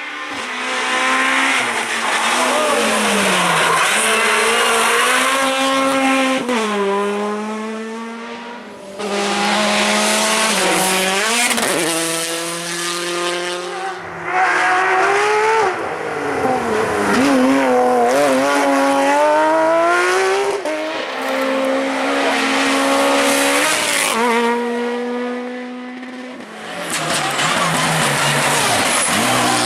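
Rally cars driven flat out on a stage. Their engines rev hard, and the pitch climbs and drops sharply with each gear change and lift-off, over several short passes edited back to back.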